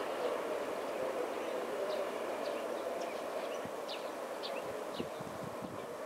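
DE10 diesel locomotive's V12 engine running steadily as it hauls the train, heard from a distance. From about two seconds in, a bird gives a string of short falling chirps over it.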